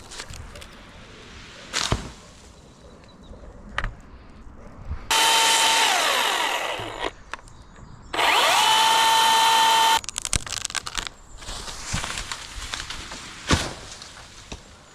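Electric power tool motor whining in two bursts of about two seconds each. The pitch sags and winds down through the first burst, and spins up quickly and holds steady in the second. Sharp knocks come before, between and after the bursts.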